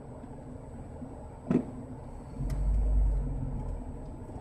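Idling car engine heard from inside the cabin in stop-and-go traffic, a steady low rumble. A single short knock comes about a third of the way in, and past the middle a deep engine rumble swells for about a second and a half before settling back.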